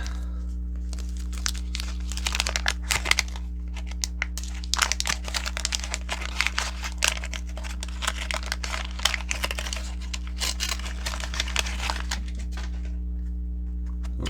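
Waxed-paper wrapper of a 1989 Fleer baseball card pack crinkling and tearing as it is opened by hand: a dense run of crackles for about eleven seconds that dies away near the end.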